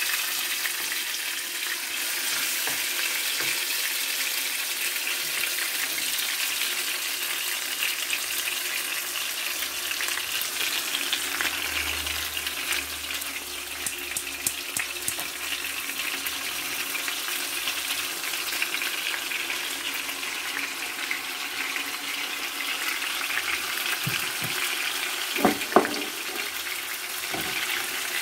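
Marinated chicken legs frying in hot oil in a frying pan: a steady sizzling hiss. Near the end a few sharp knocks as a wooden spatula moves the pieces against the pan.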